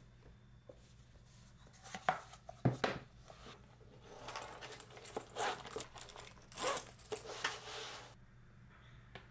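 Study things handled on a desk: a few sharp knocks as a tablet in a folding cover is set up, then several seconds of rustling and scraping as a fabric zip pouch is handled.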